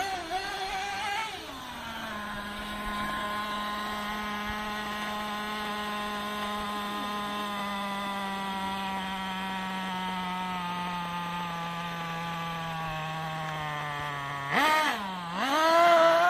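The .21 nitro two-stroke engine of a Traxxas T-Maxx RC monster truck comes off the throttle, then idles steadily with its pitch slowly sagging. Near the end it revs up sharply and loudly, twice, as the truck pulls away.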